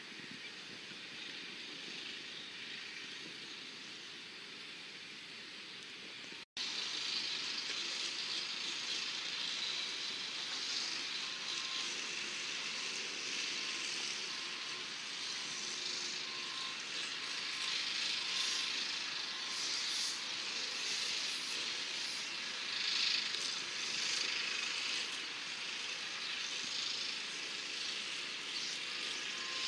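Outdoor ambience: a steady high hiss that cuts out for an instant about six seconds in and comes back louder, with faint short chirps repeating through the rest.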